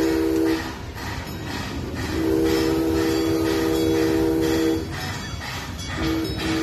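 Steam locomotive's whistle sounding several notes at once: a short blast, then a long blast, then another long blast starting near the end.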